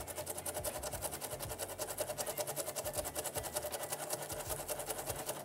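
Rapid back-and-forth scrubbing of a circuit board with alcohol to clean off solder flux, in quick, even strokes.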